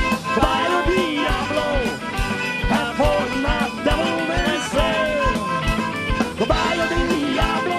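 Southern rock band playing: an electric guitar lead with bending, sliding notes over a steady kick-drum beat.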